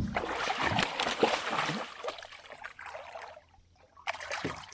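Water splashing and sloshing as a hooked channel catfish thrashes at the surface on a limb line, with a sharp splash at the start and a short lull near the end before more splashing.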